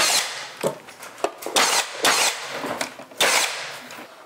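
Milwaukee cordless nail gun firing several times in quick succession, roughly one to two shots a second, as it drives nails through crown moulding.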